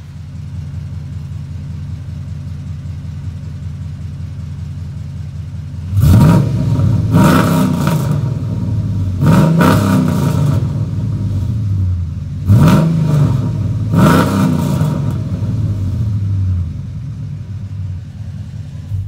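Dodge Ram Daytona's 5.7 L Hemi V8, breathing through long-tube Pacesetter headers, a 3-inch Y-pipe and MagnaFlow bullet mufflers with no catalytic converters or resonators, idling with a deep steady exhaust note. About six seconds in it is revved several times, in quick pairs of throttle blips that rise and fall sharply, then it settles back to idle.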